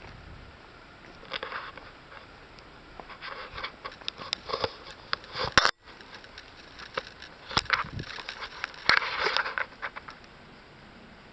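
Irregular rustling and scraping of leaves with scattered sharp clicks, from a handheld camera brushing through leafy undergrowth and being handled. A loud click about halfway through is followed by a very brief dropout.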